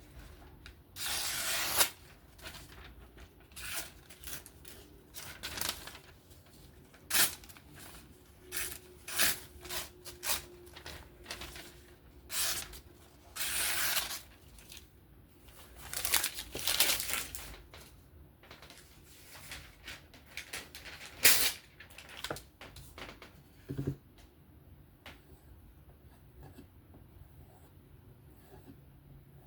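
A freshly sharpened steel knife blade making irregular scraping and slicing strokes, some a second or more long and many short ones, with a sharp tick about 21 seconds in; the strokes thin out after about 24 seconds.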